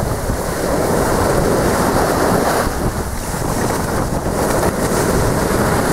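Surf washing up over a sandy shoreline, with wind buffeting the microphone.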